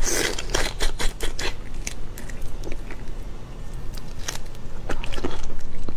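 Close-miked eating of seafood: crisp crunching bites and chewing, a run of sharp crackly clicks, with a loud crunchy bite right at the start.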